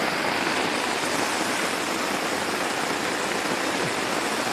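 Heavy rain pouring steadily on the forest, heard from under a tarp shelter.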